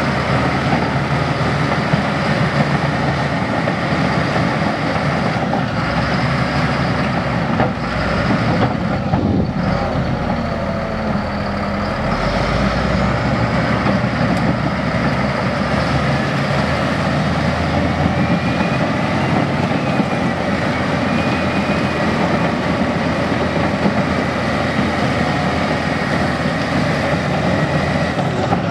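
Heavy construction equipment engine running steadily.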